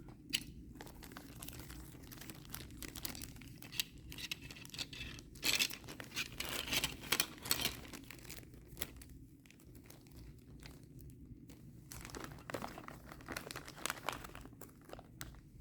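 Electronics kit packaging handled by hand as parts are packed back into their boxes: irregular rustles and clicks, busiest about five to eight seconds in.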